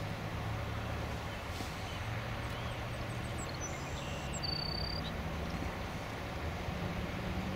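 Steady low engine rumble and traffic noise, with a few short high bird chirps and a brief whistled note about four to five seconds in.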